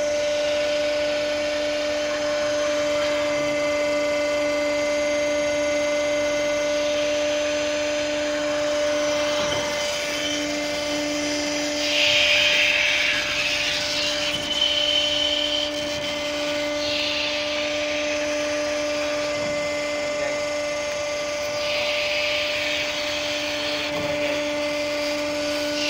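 Ship's deck winch running steadily with a motor hum, with a louder hiss surging in a few times.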